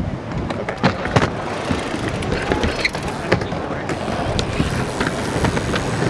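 Dirt jump bike tyres and skateboard wheels rolling over wooden skatepark ramps, with a few sharp knocks and clacks from boards and bike.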